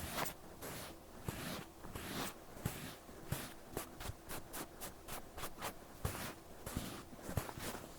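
Cotton pad wiping and rubbing over an ear in repeated scratchy strokes, which come quicker in the middle, cleaning the ear.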